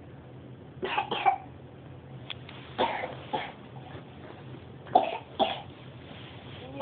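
A person coughing: three quick double coughs, about two seconds apart.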